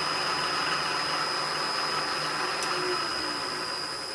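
Milling machine spindle motor running steadily with no cut, giving a constant high whine over a motor hum. It starts to fade near the end as the machine winds down.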